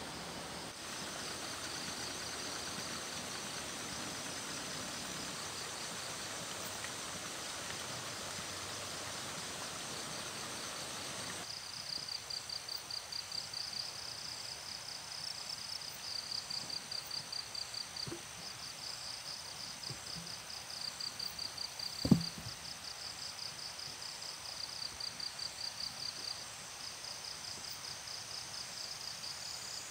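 Insects trilling in rapid, repeated bursts of high chirps. Under them, a steady hiss runs for the first eleven seconds or so and then drops away. A single sharp knock comes about two-thirds of the way in.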